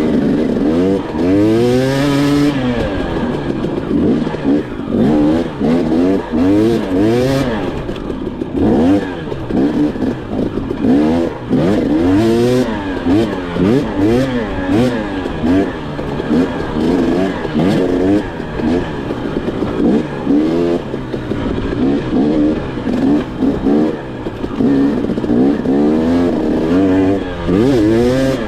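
Off-road motorcycle engine revving up and down over and over, its pitch rising and falling every second or two as the throttle is worked.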